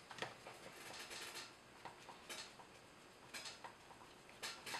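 Quiet, scattered light clicks and taps of small plastic RC truck parts and screws being handled by hand.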